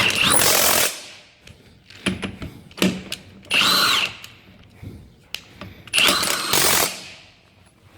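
Milwaukee M18 Fuel CHIW-P12 half-inch cordless impact wrench, fitted with a 32mm socket, running in short bursts on old truck wheel nuts. There are about four to five bursts, each with a motor whine that rises and falls as the trigger is squeezed and released. Quieter clatter comes between the bursts.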